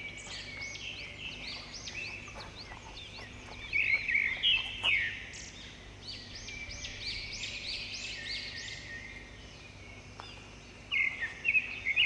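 Several small birds chirping and singing in quick, rising and falling notes, in bursts that grow louder about four seconds in and again near the end.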